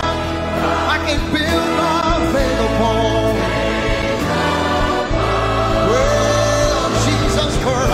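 Choir and orchestra performing a gospel song live between the soloist's lines, with trumpets among the instruments.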